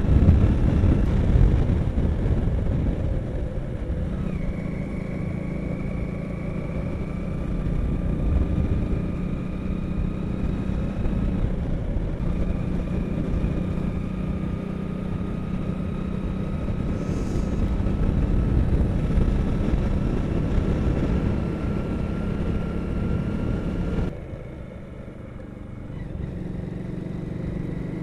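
Motorcycle engine running while riding, its pitch slowly climbing, dropping about twelve seconds in and climbing again, over wind rush on the microphone. About 24 seconds in the sound suddenly drops and grows duller, then picks up again near the end.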